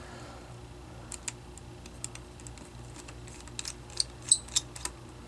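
Small screwdriver and screws clicking and ticking against the metal mounting bracket of a laptop screen assembly as the screws are worked out. The light ticks are scattered, with a quicker, louder cluster about four seconds in.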